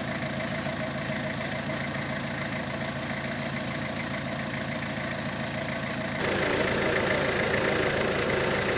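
Minivan engine idling steadily. About six seconds in the sound changes abruptly and gets louder.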